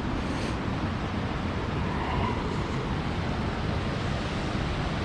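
Steady rushing of a waterfall, falling water heard as an even roar.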